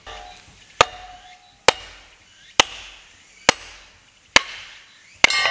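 Hammer blows on the top of a log, driving it down onto the blade of a cast-iron Kindling Cracker to split kindling. There are about seven sharp strikes, a little under a second apart, several with a brief metallic ring. The last, near the end, is the loudest and rings longest.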